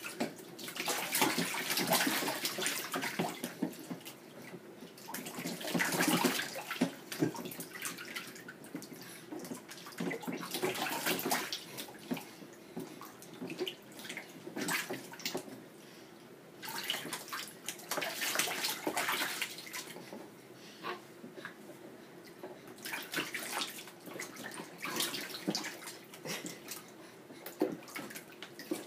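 Water splashing and sloshing in a plastic infant bathtub as an adult's hand moves it around a baby's legs, in bursts every few seconds with quieter stretches between.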